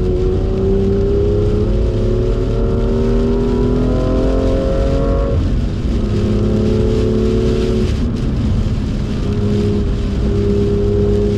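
BMW M2's turbocharged straight-six pulling hard under full throttle, its pitch rising steadily, then dropping sharply at an upshift about five seconds in. It then runs at a steadier pitch, with another step down near eight seconds.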